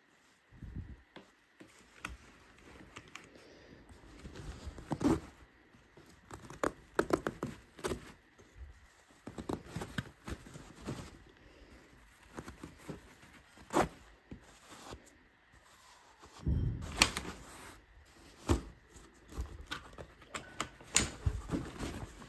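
Handling noises from a baby bassinet being assembled: fabric and padded mattress rustling and a fabric strap being fastened around the frame tube, with scattered clicks and knocks from the frame. The sounds come irregularly, with several sharper knocks and a longer rustling stretch about two thirds of the way in.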